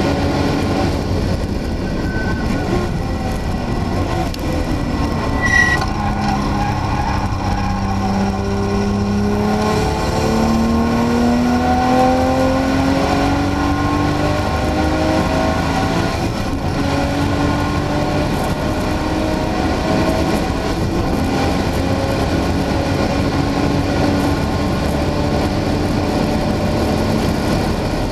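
Porsche 911 Turbo's turbocharged flat-six through a Supersprint sport exhaust under track driving, with wind and tyre noise. The engine note holds low through a slow corner, then climbs in pitch from about a third of the way in as the car accelerates out and shifts up through the gears.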